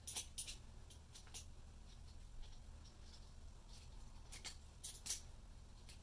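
Faint, sharp snips of hand cutters clipping clear plastic bird-spike strip, trimming its rough edges: a few clicks near the start and a quick cluster around four to five seconds in.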